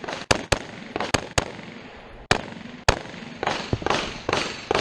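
Rifle gunfire in a rapid string: about eight sharp shots in the first three seconds, unevenly spaced, each with an echo, then a run of softer, more echoing shots near the end.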